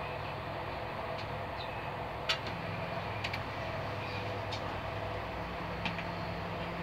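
Steady running noise of a Corail passenger coach on the move, heard from inside, with a low even hum. A few short sharp clicks sound over it, the loudest about a third of the way in.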